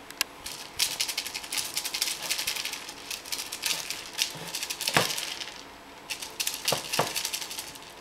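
Spring-mounted toy mice on a cat toy rattling and clicking rapidly as a cat bats at them, with a louder knock about five seconds in and two more near the end.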